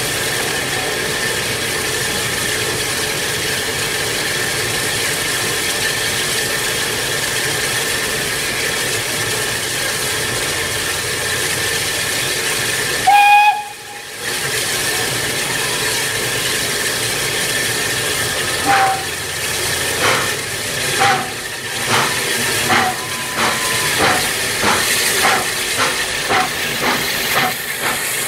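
Saddle-tank steam locomotive standing with a steady hiss of escaping steam. About 13 seconds in it gives a short whistle. From about 19 seconds it pulls away, its exhaust chuffs starting slow and quickening to about two a second.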